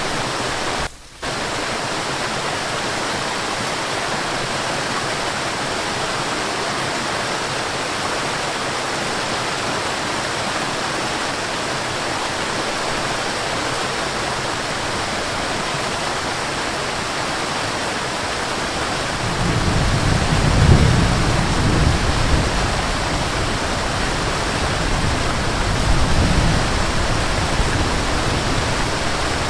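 Waterfall rushing in a steady hiss-like roar of falling water. It briefly drops out about a second in, and a deeper low rumble comes in about two-thirds of the way through.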